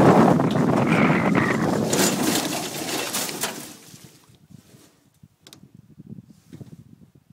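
Wind rush and rolling noise of an unpowered gravity coaster cart coasting downhill, fading as it slows, with a few knocks as it runs onto rough dirt, and dying away about four seconds in as the cart comes to a stop. After that only faint small clicks and rustles.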